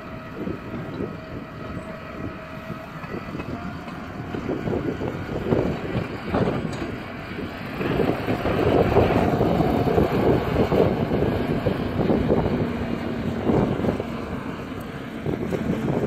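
Tractor engine running as it pulls away from the beet heap with a tipping trailer, under wind buffeting the microphone; it gets louder about halfway through.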